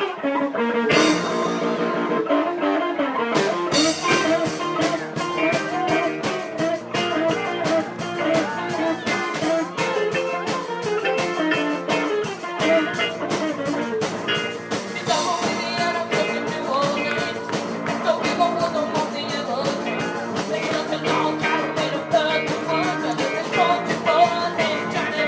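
Youth rock band playing live: electric guitars and keyboard, with drums coming in about four seconds in and a singer over the band.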